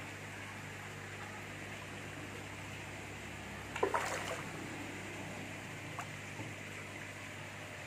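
Koi splashing at the pond surface, one short splash about four seconds in and a small one near six seconds, over a steady hiss of moving water with a low hum.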